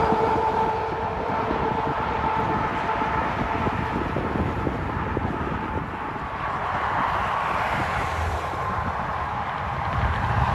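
Highway traffic heard from the roadside. A loaded dump truck's tyre and engine hum drifts slightly lower and fades as it drives away. Steady traffic noise follows, and near the end it grows louder as a tanker semi and cars approach.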